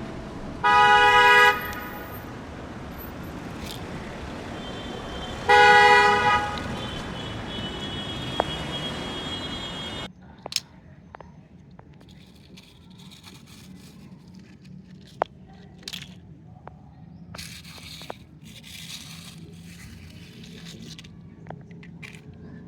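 A car horn honks twice, about a second in and again about five seconds later, over a steady rushing noise that stops abruptly about ten seconds in. After that come scattered small clicks and crackles.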